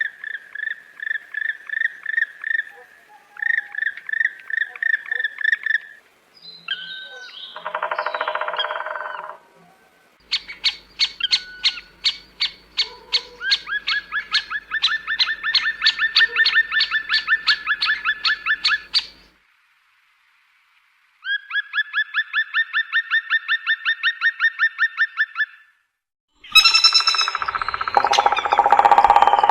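A string of separate wild bird recordings: long runs of evenly repeated calls at about four notes a second, a short harsher call between them, and near the end a louder, more complex song. Brief silent gaps fall between the pieces.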